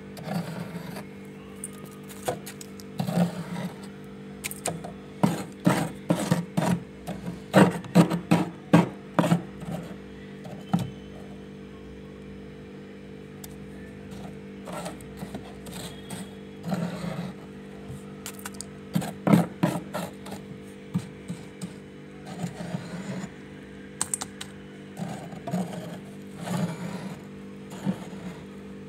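Metal spoon scraping and crunching through thick, snowy freezer frost in clusters of short strokes, with a lull near the middle. A steady hum runs underneath.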